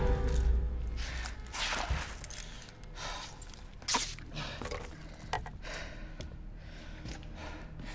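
Film sound effects: a low rumble that fades over the first two seconds, then a few scattered sharp knocks and thuds.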